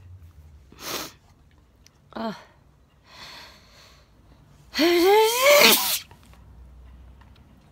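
A woman sneezing during a sneezing fit: a few short breaths and a brief gasp build up, then one loud sneeze about five seconds in, a rising 'aah' that ends in a sharp burst.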